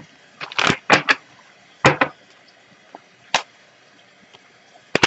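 Tarot cards being shuffled by hand: a few short bursts of rustling and flicking, with quiet gaps between them.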